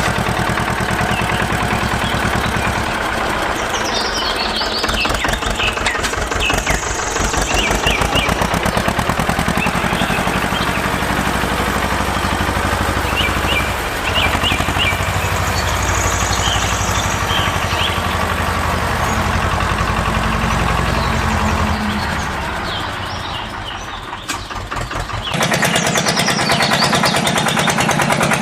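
A small engine running with a rapid, even firing beat, and birds chirping over it. Near the end the sound changes to a brighter, denser noise.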